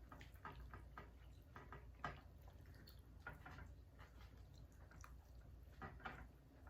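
Faint eating sounds: chewing and small scattered clicks, irregularly spaced.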